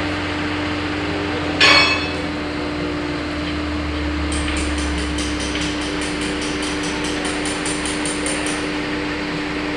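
Hammer striking steel: one hard ringing blow, then a quick run of light metallic taps, about five a second, for about four seconds.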